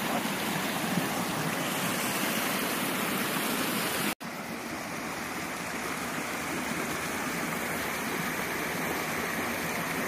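Rushing water of a rocky stream running over small cascades, a steady hiss. After a brief drop-out about four seconds in, the sound turns to a tall waterfall pouring into a pool, a steady rush with less hiss.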